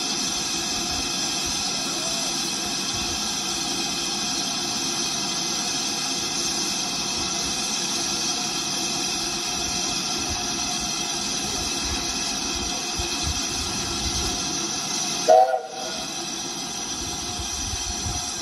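Steady hiss of steam from a standing BR Standard Class 5 4-6-0 steam locomotive. About fifteen seconds in comes one brief, loud, pitched blip.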